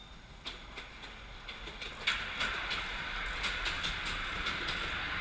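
Miniature railway train on 7¼-inch gauge track: sharp metallic clicks of wheels over rail joints, joined about two seconds in by a steady hiss that continues under further clicks.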